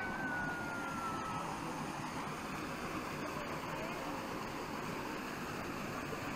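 Steady outdoor background noise beside a fishing pond, with a thin high whine that slides slowly down in pitch over the first second and a half and then fades out.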